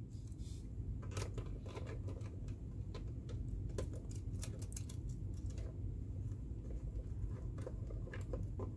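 Small scattered clicks and scrapes of a screwdriver and wire being worked into the coil terminal screw of a contactor, over a low steady hum.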